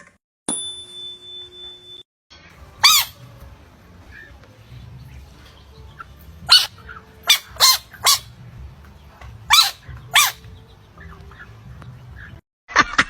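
A steady tone lasting about a second and a half, then a series of about seven short, high-pitched squeaky animal calls, in twos and threes.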